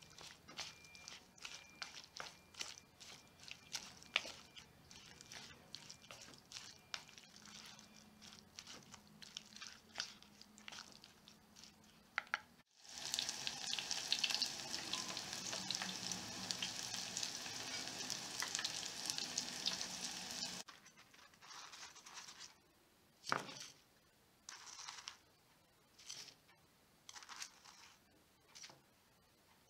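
Batter-coated tofu skin and onion strips being stirred in a bowl with scattered small clicks, then, after a cut about halfway through, the strips sizzling loudly as they deep-fry in hot oil for about eight seconds. After that come quiet, scattered short rustles and taps.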